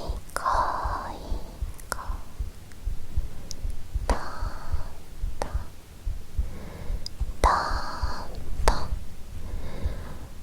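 A woman's own heartbeat recorded close up, beating steadily and low, with slow breaths into the microphone about every three seconds and a few soft clicks.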